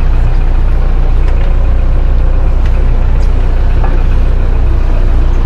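Boat engines idling with a steady, loud low rumble.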